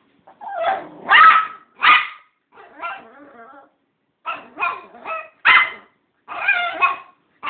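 Chihuahua 'talking' back: a string of whiny, warbling howl-like moans broken by sharp short barks, a rough grumble and a quick run of four yips. It is a complaining vocalization from a dog upset at being left out.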